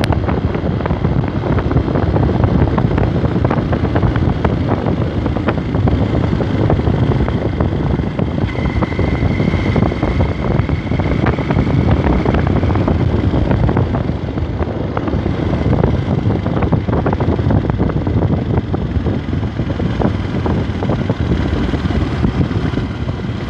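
Honda NXR 150 Bros motorcycle's single-cylinder engine running steadily at cruising speed, mixed with strong wind rush on the bike-mounted microphone.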